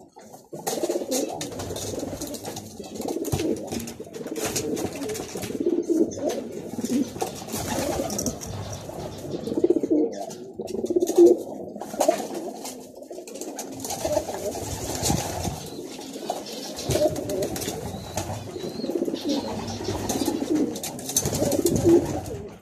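Racing pigeon cooing, a low throaty burble that runs on almost without a break, with scattered short clicks over it.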